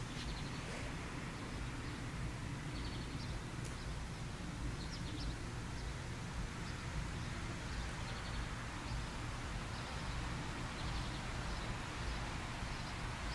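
Outdoor background: a steady low rumble with faint, short bird chirps scattered throughout.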